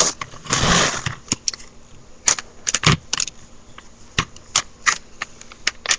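Small plastic toy parts of a broken playset swing clicking and rattling as they are handled, in irregular sharp clicks, with a brief rustle about half a second in.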